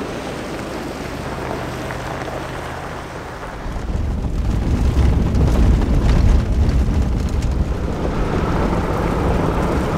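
SUV driving a rough dirt road: a steady engine hum at first, then about four seconds in a louder low rumble of tyres on gravel, heard from inside the cabin.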